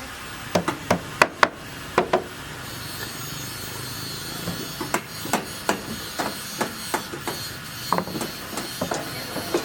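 Hammering on a building site: a handful of loud, sharp hammer blows in the first two seconds, then a run of lighter, irregular knocks.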